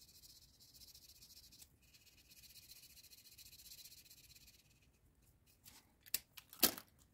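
Felt-tip marker scratching across paper while colouring, a faint dry hiss in short strokes that stops about two-thirds of the way through. Near the end come a few sharp clicks and one louder knock.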